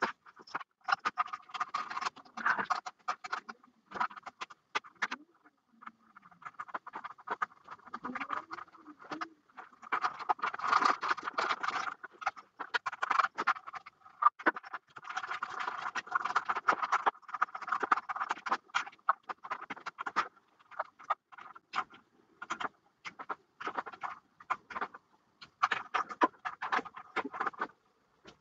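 Small clicks, scrapes and rattles from hands working a white EQ5 equatorial telescope mount, coming in irregular runs with brief pauses.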